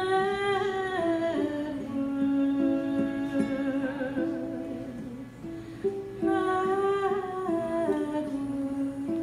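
A woman humming a slow wordless melody in two phrases, each starting high and stepping down in pitch, over her own strummed ukulele.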